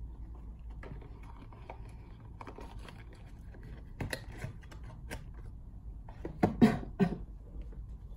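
Small skincare bottles and jars being handled and set down on a cluttered table: scattered light clicks and knocks, with a couple of louder knocks near the end.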